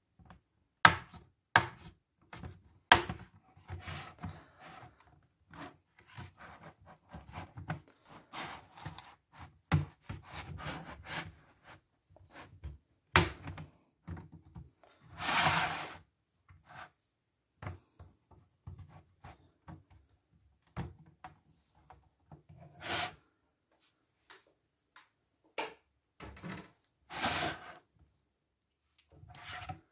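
Laptop teardown handling noise: sharp clicks and taps of tools and plastic parts, with rubbing and scraping in between, and two longer scrapes about halfway through and near the end.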